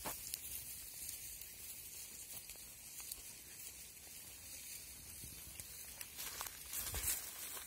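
Faint crunching and rustling of footsteps through dry grass, over a steady high hiss, with a few louder steps near the end.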